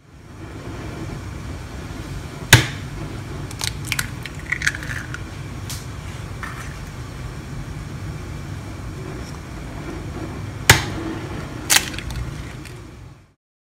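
Eggs tapped against a glass mixing bowl and broken open: a sharp crack a few seconds in, a few small shell ticks, then two more sharp cracks close together near the end, over a steady low hum.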